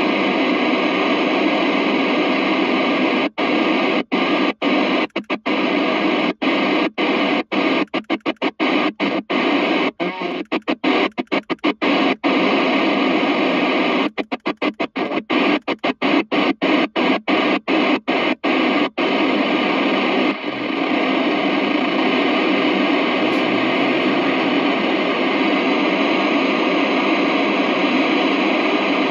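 CB radio loudspeaker hissing with FM receiver static, squelch open and no station coming through. The hiss cuts out in a long run of quick gaps as the channel selector is clicked down through the channels and back up, then runs steady again.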